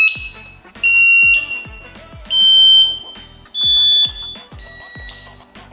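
Electronic bicycle theft alarm giving a series of short, loud, high beeps, about one every second and each at a slightly different pitch. Background music with a steady kick-drum beat runs underneath.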